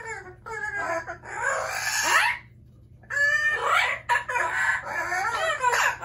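Amazon parrot calling loudly: a run of harsh squawks and calls that bend up and down in pitch, broken by a short pause about halfway through.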